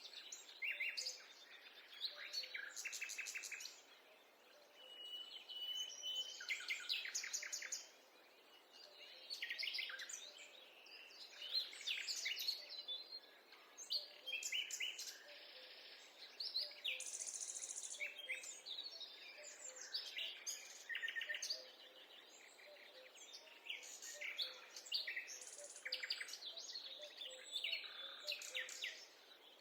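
Wild birds singing and calling over one another: a steady run of chirps, quick trills and repeated notes, over a faint even hiss.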